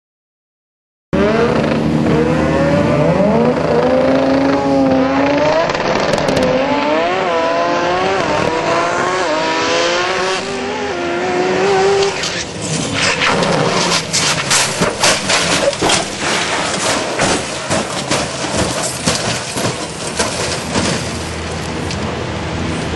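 Drag racing car's engine running hard, its pitch rising and falling several times, then from about twelve seconds in a string of loud bangs and scrapes as the car crashes and tumbles down the track.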